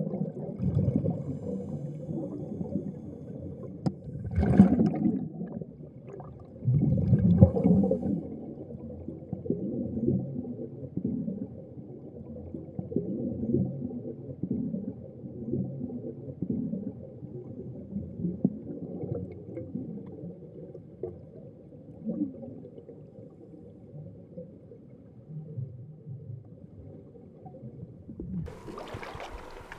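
Muffled underwater gurgle of scuba divers' exhaled air bubbling from their regulators, swelling into two louder bubble bursts about four and seven seconds in. Just before the end it gives way to brighter splashing.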